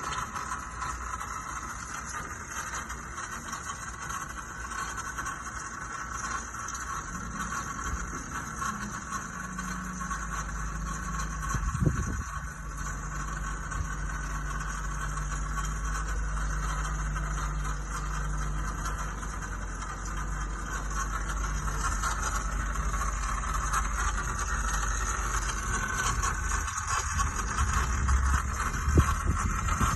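Car engine running with its starter motor still engaged after the start, giving a steady high-pitched whine over the engine's low drone, with a couple of short knocks. The starter is not disengaging because of a defective solenoid.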